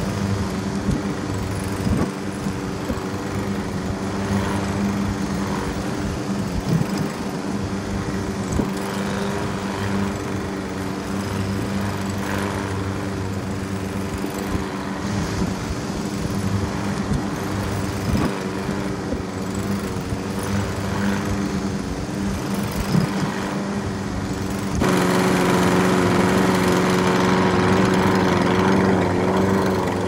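Lawn mower engine running steadily while mowing grass, with scattered sharp ticks over its drone. About five seconds before the end it grows louder and brighter.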